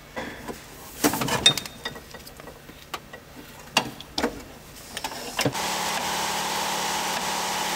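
Metal tool clinks and knocks as a socket and ratchet work on the brake pedal pivot bolt up under the dashboard. About five and a half seconds in, a steady, even whir starts and holds.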